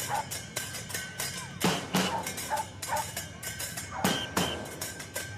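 Instrumental stretch of a song from the soundtrack, with a drum kit hitting a beat over other instruments.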